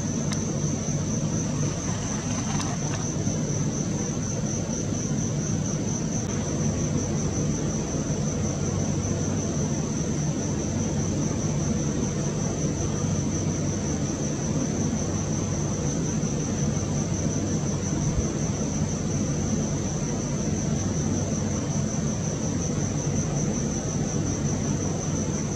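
A steady low drone with a continuous high-pitched, fast-pulsing trill above it.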